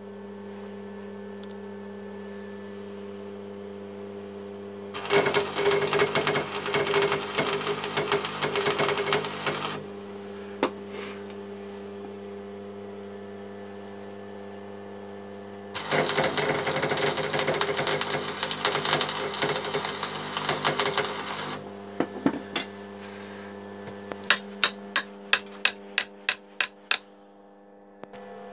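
Electric arc welder: two runs of dense crackling of about five seconds each, over the steady electrical hum of the welder, while a cog is welded onto a strimmer engine. Near the end come about nine sharp taps in quick succession.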